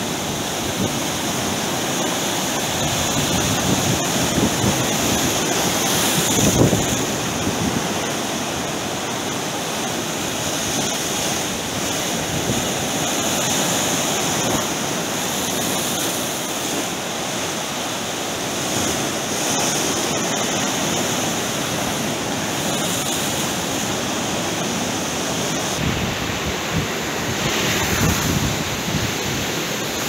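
Rough sea surf: waves breaking and washing over a rocky shore and low concrete jetty, a continuous rush with louder swells about six seconds in and again near the end.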